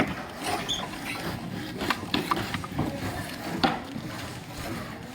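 Scattered light knocks and clicks of construction work, irregular in timing.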